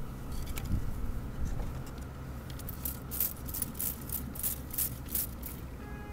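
Trigger spray bottle spritzing syrup onto the hive frames and bees: about eight quick sprays in a row, roughly three a second, starting about three seconds in.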